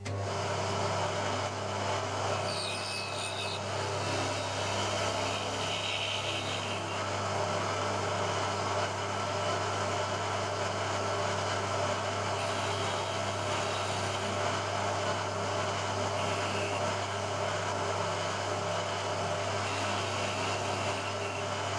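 Vertical milling machine running steadily, its end mill cutting a slot into an aluminium block: a constant motor hum under the even noise of the cut.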